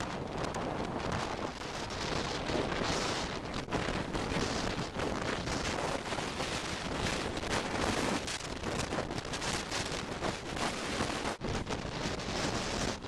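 Hurricane wind buffeting the microphone over the rush of heavy storm surf breaking on rocks and the shore, gusting unevenly, with a brief lull about eleven seconds in.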